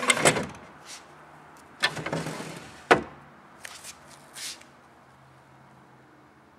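Solid oak drawer of an 1850s French dresser sliding in its wooden runners, wood scraping on wood, with a sharp wooden knock about three seconds in and a few light clicks after.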